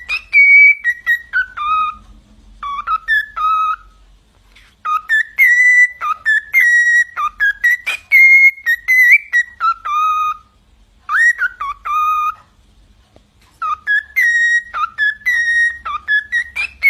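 Whistling in phrases of short, clear notes that slide up and down in pitch, with brief pauses a few seconds in and again about two-thirds of the way through.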